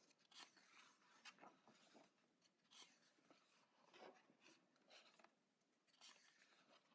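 Faint paper rustling as the pages of a paperback coloring book are turned, with several soft swishes a second or so apart.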